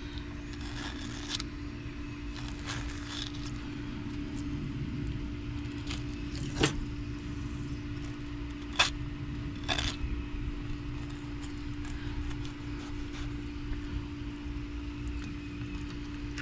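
Fillet knife scraping and clicking along a flounder's backbone as the fillet is cut free, with a few short sharp scrapes about a third and halfway through. A steady low hum with one even tone runs underneath.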